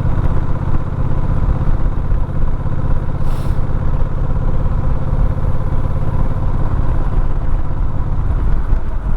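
Motorcycle running steadily while being ridden, a continuous low rumble with no breaks.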